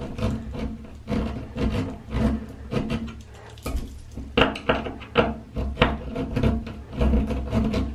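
Small screwdriver turning the set screw on a chrome towel ring's wall mount, a string of irregular metal clicks and scrapes.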